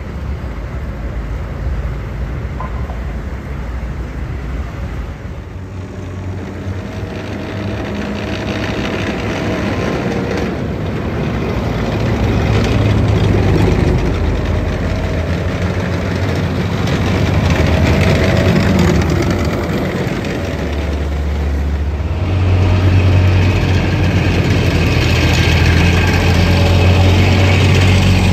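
Military vehicles driving past: the diesel engines of Humvees, then tracked armoured vehicles and tanks. The sound grows steadily louder as the tracked vehicles come closer.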